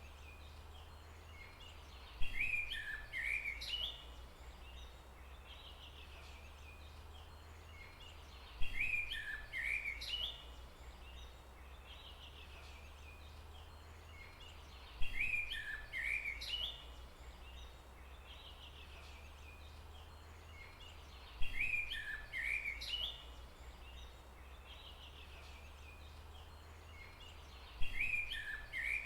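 A bird's short phrase of quick chirping notes, repeated five times at even intervals of about six seconds, over a steady low rumble.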